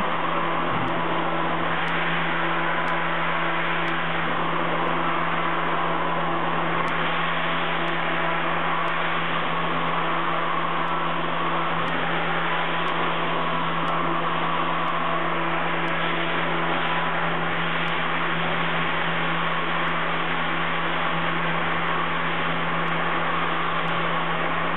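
CNC milling machine's spindle running and an end mill cutting 16MnCr5 case-hardening steel on an iMachining adaptive toolpath. The sound is a steady, even hum with a constant low tone.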